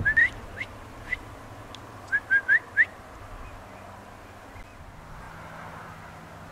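A series of short, high chirps, each rising quickly in pitch: two together at the start, single ones about half a second and a second in, then four in quick succession about two seconds in.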